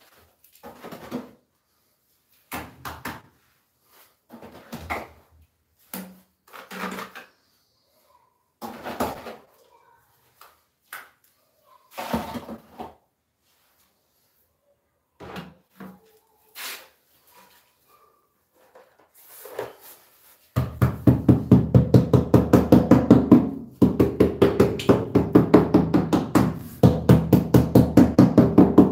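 Rubber mallet tapping rapidly on a ceramic floor tile, several quick blows a second in three runs with short pauses, to bed the tile into the adhesive. Before that, scattered short knocks and scrapes as the tile is handled.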